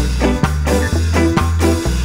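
Ska song playing with a Fender Jazz Bass line of short, muted low notes on the lowest strings. The notes are fretted with one finger and damped with the others to copy the quick, percussive decay of an Ampeg Baby Bass.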